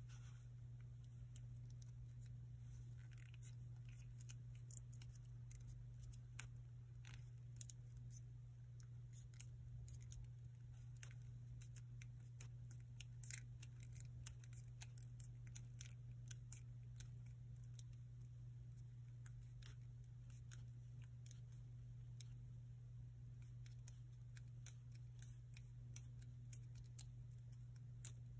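Narrow strip of origami paper being folded in half lengthwise and creased between fingertips: scattered faint paper crackles and ticks over a steady low hum.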